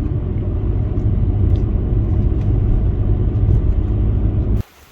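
Car driving on the road: a loud, steady low rumble of engine and tyres that cuts off suddenly near the end.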